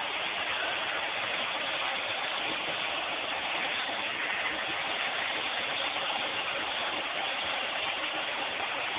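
Vacuum cleaner running steadily while it is used on a Bernese mountain dog's coat; an even hiss with no change in pitch or level.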